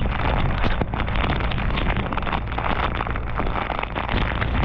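An engine idling with a steady low hum, under heavy wind buffeting and rain crackle on the microphone.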